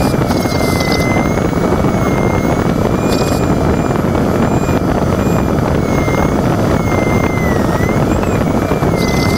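Loud steady rush of air around an LS4B glider's cockpit canopy in flight, with the variometer's thin audio tone slowly wavering up and down in pitch, and a few brief hisses.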